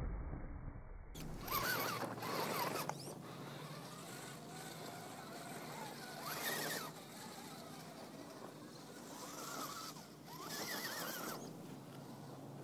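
Electric motor and gears of an Axial XR-10 RC rock crawler whining in several short bursts as it climbs sandstone, the pitch rising and falling with the throttle. A brief low rumble comes at the very start.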